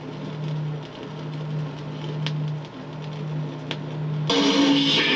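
A vinyl LP playing on an Audiotronics 300-E classroom record player through its built-in speaker. It opens quietly, with a low steady tone and a couple of clicks. About four seconds in, loud guitar music comes in.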